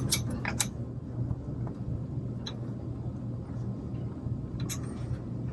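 Steady low hum with a few faint, light clicks of small metal screws and a plastic mounting bracket being handled.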